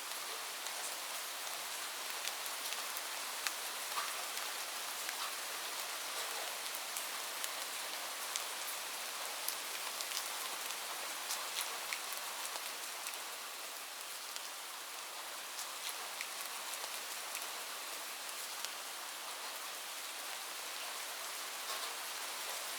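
Light rain falling steadily: an even hiss with many scattered individual drop ticks.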